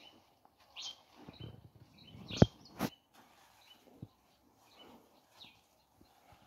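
Birds chirping among the vines, with a soft rustle of leaves and two sharp clicks close together about two and a half seconds in, the first the loudest.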